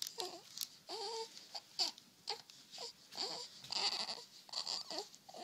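Infant making a string of short, high-pitched whiny vocal sounds, about one every half second.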